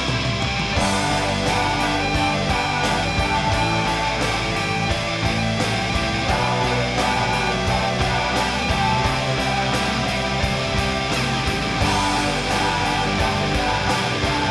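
Instrumental rock music: distorted electric guitars over bass and a steady drum beat.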